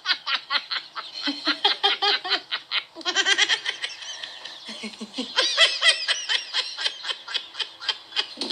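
High-pitched laughter in quick repeated pulses, a few each second, with a new laugh starting about three seconds in and another past the five-second mark; it is a laughing sound effect added to the video.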